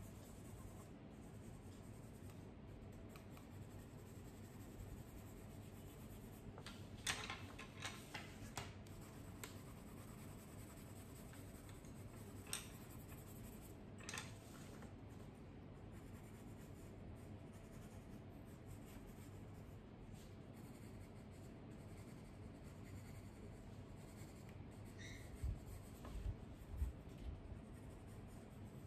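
Colored pencils scratching and rubbing faintly on paper while shading, with a quick run of sharp clicks about seven seconds in and a few dull bumps near the end.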